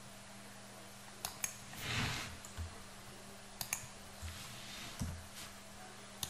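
Computer mouse and keyboard clicks: a few sharp clicks, mostly in quick pairs, with a soft rustle about two seconds in, over a low steady electrical hum.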